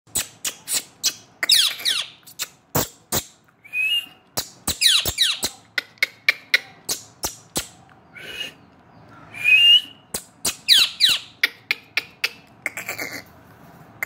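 Indian ringneck parakeet calling: several harsh calls that fall in pitch and a few short whistles, among many sharp clicks.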